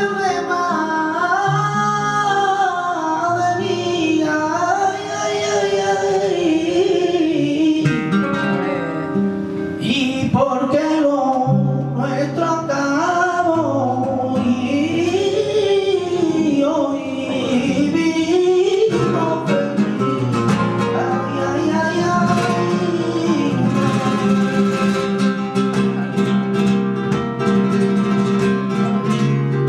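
Flamenco cante: a man sings long, wavering, ornamented phrases over flamenco guitar accompaniment. After about two-thirds of the way through, the voice drops back and the guitar comes forward.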